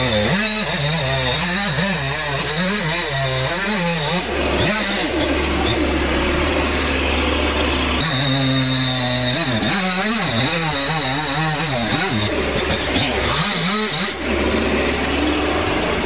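Two-stroke chainsaw cutting through a large tree trunk, its engine pitch repeatedly dipping and rising as it bogs in the wood and revs back up.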